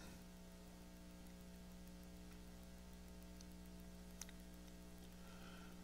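Near silence: room tone with a steady low electrical hum, and one faint click about four seconds in.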